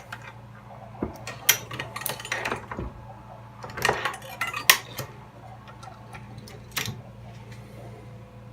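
Scattered metallic clicks and clinks from hand-adjusting the crimp die in a Dillon XL650 reloading press's toolhead. The loudest is a cluster about four to five seconds in.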